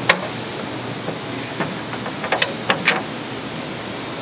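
Steel carriage bolts being set into the holes in the floor of a hard plastic storage box, metal clicking on plastic. There is a sharp click at the start and a handful of light clicks and taps about one and a half to three seconds in, over a steady background hum.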